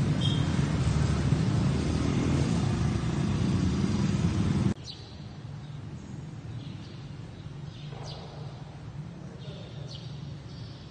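A loud, steady low rumble that cuts off suddenly about five seconds in, leaving a quieter steady hum in which birds chirp a few times with short, sharp calls.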